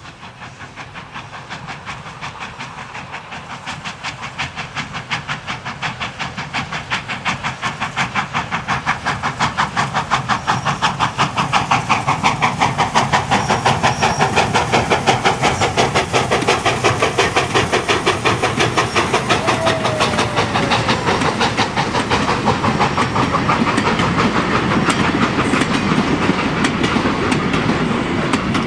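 Steam locomotive working a passenger train, its exhaust beating in a fast, even rhythm that grows steadily louder as the train approaches and passes. Near the end the carriages roll past with wheels clicking over the rails.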